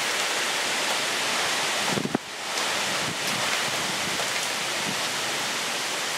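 Thunderstorm: heavy rain pouring in a steady rush while gusting wind thrashes the trees and buffets the microphone, the rush dipping briefly about two seconds in.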